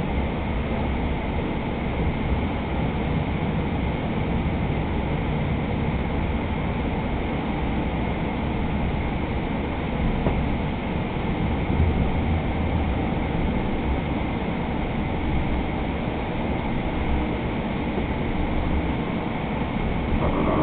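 Steady running noise of a Hudson-Bergen Light Rail car under way, heard from inside the cabin: an even, low-heavy rumble with no change in level.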